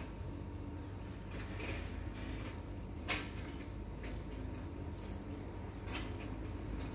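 Outdoor background with a steady low rumble. A short, high, falling bird chirp sounds twice, about five seconds apart, along with a few faint knocks.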